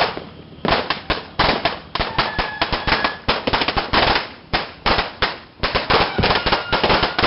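Strings of firecrackers going off in rapid, overlapping bangs, many a second, after a brief lull at the start.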